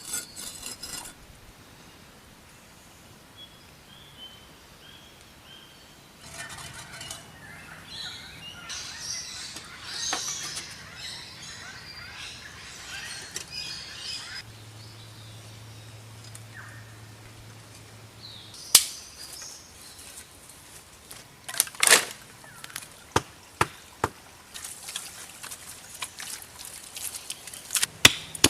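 Birds chirping faintly, then a long stretch of rustling and scraping, then a series of sharp, irregular knocks, the loudest sounds here.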